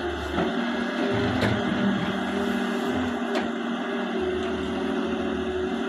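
Heavy diesel construction machinery running steadily at a constant pitch, with a couple of sharp metallic clicks or knocks.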